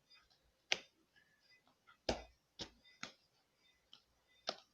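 Slime softened with toothpaste being pressed and folded by hand, giving about five sharp, irregular clicks, the loudest about two seconds in.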